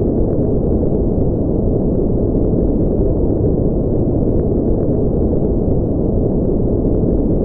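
Steady white noise for sleep, deep and muffled, with nothing bright or hissing in it.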